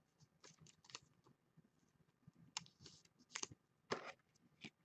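Faint, scattered clicks and light rustles of a trading card being handled and slid into a clear plastic sleeve.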